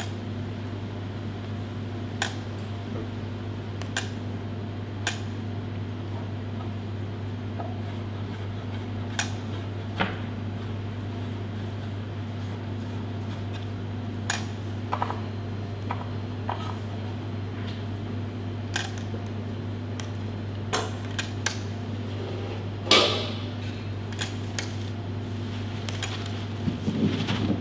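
Stainless-steel piston funnel clicking and clinking now and then as its lever is worked to release liquid into a mould, over a steady low hum. A louder metallic clatter comes near the end.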